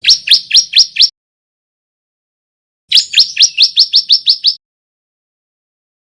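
Male bar-winged prinia (ciblek) singing two bursts of rapid, sharp repeated notes, about six a second. There is a short run of about five notes at the start and a longer run of about ten notes about three seconds in.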